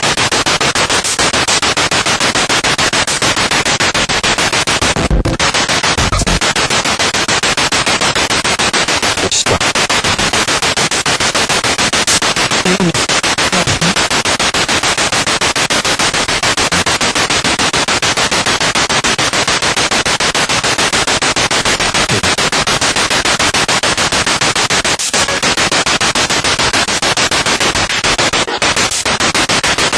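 Spirit box radio sweeping rapidly through stations: loud, steady hissing static chopped into a fast, even stutter, with brief fragments of broadcast sound now and then.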